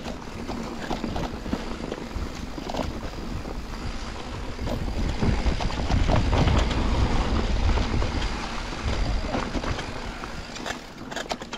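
Mountain bike riding over a rough dirt trail: wind rushing over the camera microphone, with the tyres and bike rattling and clicking over stones. The rumble is loudest in the middle.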